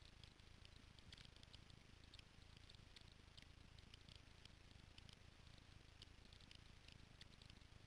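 Near silence: faint background with scattered light ticks and clicks and a low hum; no engine running.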